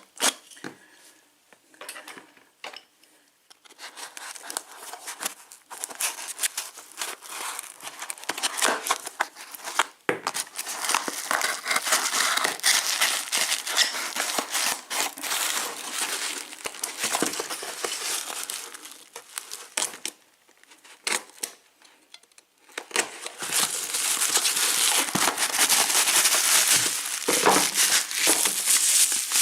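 A parcel of packing material being torn open and unwrapped by hand: dense crinkling, crumpling and tearing in two long spells, with a short pause near the end.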